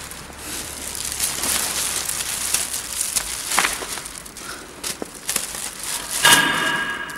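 A clear plastic bag crinkling and rustling as broken slabs of pressed cocoa cake are loaded into it, with scattered clicks of the pieces knocking together. A brief high squeal, the loudest sound, comes near the end.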